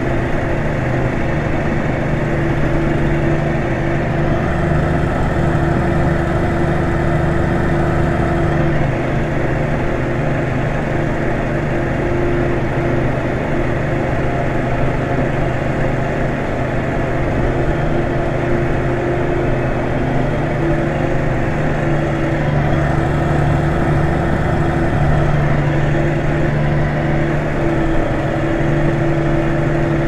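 New Holland 8160 tractor's diesel engine running steadily under load while pulling a four-furrow reversible plough, heard from inside the cab. Its low drone swells slightly twice.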